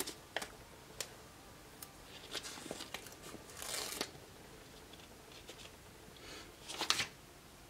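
Paper sticker sheets being handled and rustled, with a few brief crinkles and light clicks and taps.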